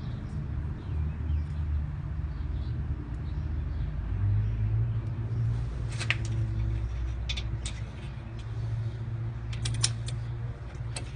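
A few sharp metallic clicks and taps as the brake pad retainer rod is worked into place through the caliper and pads, a cluster around the middle and another near the end, over a steady low rumble.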